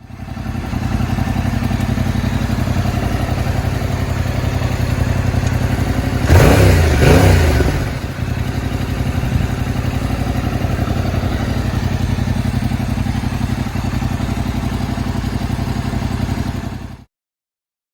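Yamaha YZF-R7's 689 cc parallel-twin engine idling steadily through its exhaust. About six seconds in it is given two quick throttle blips that rise and fall back to idle. The sound stops abruptly near the end.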